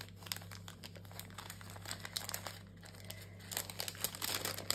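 Crinkling and rustling of a clear plastic packet as hands handle and peel small sticker pieces, irregular and fidgety. It eases off briefly in the middle, then picks up again near the end.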